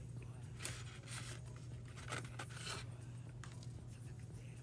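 Packaging being handled as a DVD is taken out: a few short bouts of rustling and scraping, over a low steady hum.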